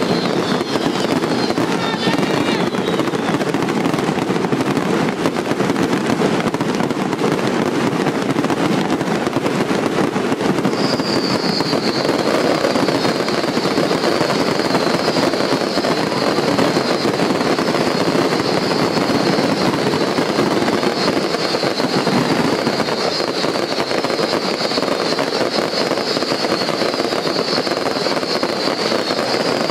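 Fireworks going off in a dense, unbroken crackle. Rapid high whistles that fall in pitch join in from about a third of the way through and keep repeating.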